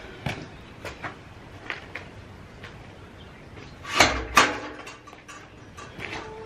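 Footsteps on concrete, then a galvanized metal tube gate swung shut, with two loud metallic clanks about four seconds in.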